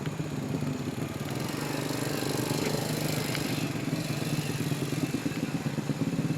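A small engine running steadily, with a rushing noise swelling around the middle.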